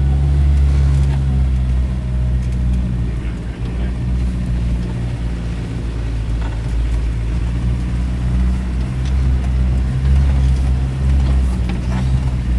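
Off-road vehicle's engine running at a steady low drone while driving over rough ground, with a few knocks scattered through.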